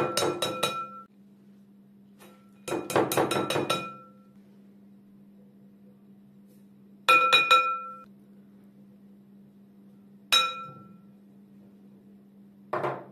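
A mesh strainer rapped against the rim of a glass mixing bowl: two bursts of quick taps in the first four seconds, each ringing the glass. Shorter clusters of taps on the glass and single knocks follow later, over a faint steady hum.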